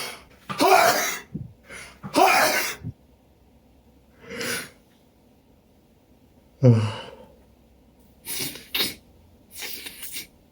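A person's allergy sneezing fit, put down to pollen: several loud sneezes a few seconds apart, the loudest about a second in, about two seconds in and near seven seconds. Sharp quieter breaths and sniffs come between them.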